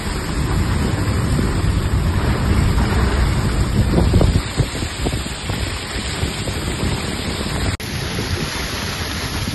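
Steady rushing noise of heavy rain, with wind buffeting the microphone. It drops out for an instant about eight seconds in, then goes on a little quieter.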